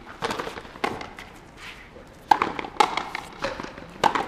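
Frontenis rally: the rubber ball struck by rackets and smacking off the fronton wall, about five sharp echoing knocks, the loudest a pair about two and a half seconds in.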